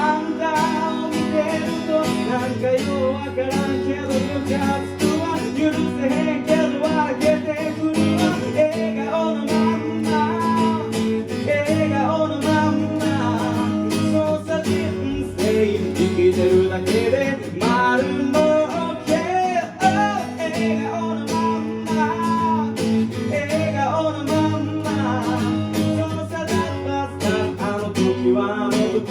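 Live music: acoustic guitar strummed and picked, with a wavering melody line over it.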